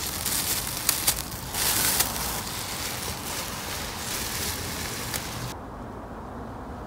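Plastic protective covers being pulled off new car seats: crinkling and rustling with a few sharp clicks. The crinkling stops suddenly about five and a half seconds in, leaving only a quiet low rumble.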